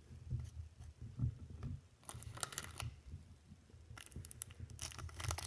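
Low handling thumps as a stack of baseball cards is set down, then a Topps baseball card pack's shiny wrapper crinkling from about two seconds in, growing denser near the end as it starts to be torn open.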